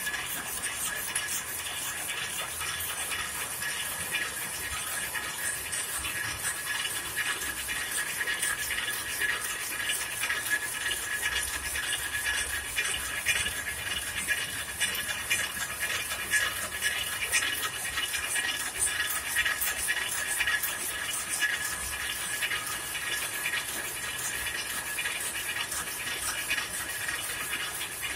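Converted rapier loom fitted with a tuck-in selvedge device, weaving at full speed: a fast, steady mechanical clatter of rapid, evenly repeating clacks.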